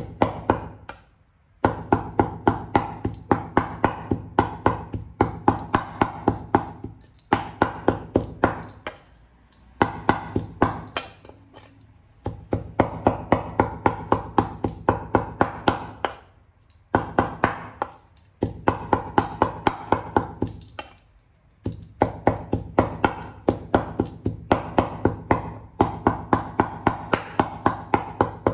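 Cleaver chopping raw pork on a wooden chopping board, mincing it with quick, even strikes of about three a second. The strikes come in runs of a few seconds with short pauses between.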